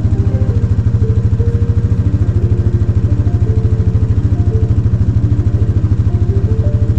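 A steady motor-like running with a rapid, even pulse, with faint steady tones over it that shift in pitch now and then.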